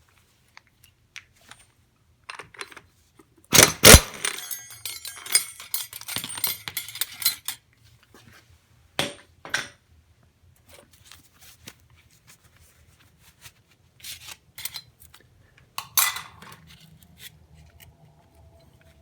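Small metal engine parts and hand tools clinking and clattering as they are handled on a workbench: a loud clatter about four seconds in, a few seconds of jingling after it, then scattered single clicks.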